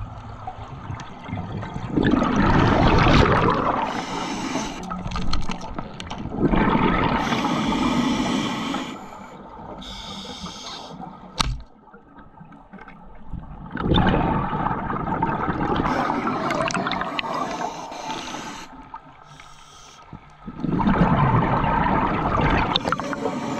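Scuba diver breathing through a regulator underwater: four long bursts of exhaled bubbles gurgling past the camera, with quieter stretches between. A single sharp click near the middle.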